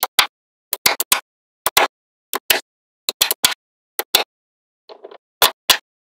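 Magnetic balls snapping onto one another: a string of sharp clicks, many in quick pairs, with dead silence between them. A soft scrape comes shortly before the last two clicks.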